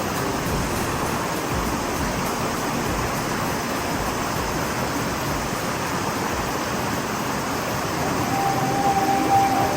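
Steady rush of flowing water from a canyon stream or waterfall, an even unbroken noise.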